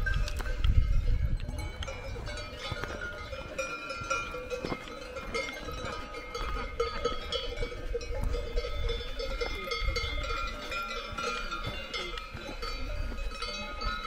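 Several cowbells ringing irregularly and without pause, as from cattle grazing on an alpine pasture, with a low rumble near the start.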